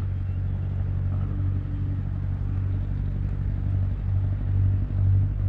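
Motor vehicle engine running steadily, a low hum of constant pitch that begins to pulse slightly near the end.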